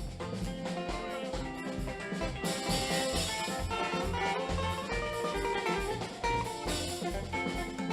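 Live gospel praise band playing an instrumental passage: a steady drum beat under guitar and keyboard lines, which fill out about two and a half seconds in.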